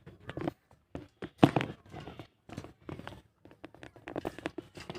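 Quaker parrot making an irregular run of short clicks and brief chattering chirps, one louder near the middle.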